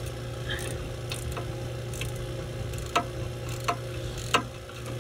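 Sharp metallic clicks and clinks, about six spread over a few seconds, as a wrench works the bolts and nuts off the spring-loaded end cap of a Sporlan replaceable-core filter drier shell. A steady low hum runs underneath.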